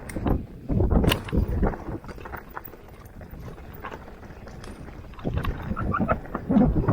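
Mountain bike riding over a dirt trail: tyre rumble with bursts of clattering and rattling from the bike, loudest about a second in and again near the end.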